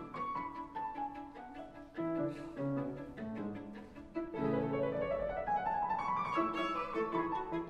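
Classical music for violin and piano plays as a steady run of notes. In the second half, a line of notes climbs in pitch.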